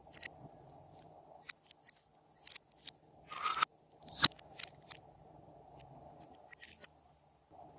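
Glossy slime being mixed, giving scattered sharp clicks and pops, with one longer squelch about three and a half seconds in and the loudest pop just after it.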